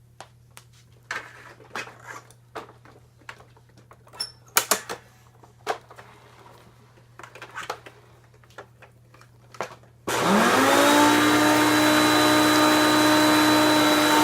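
Scattered clicks and knocks of handling, then about ten seconds in the Hoover PowerMax upright vacuum's motor switches on, spinning up within a second to a loud, steady whine.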